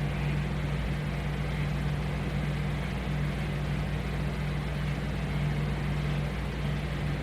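Steady machine hum with an even hiss underneath, unchanging throughout: the studio's constant background drone.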